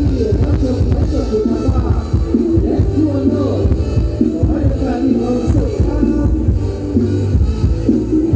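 Loud mor lam stage music: a band playing a melody over a heavy, steady bass drum beat.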